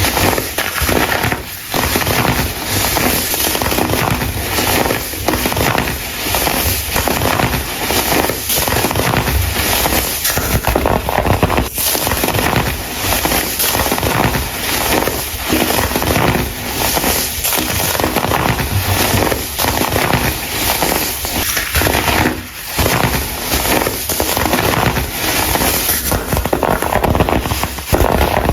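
Dried, coloured baking soda being crushed and crumbled: a dense, continuous crunchy crackle of many fine snaps.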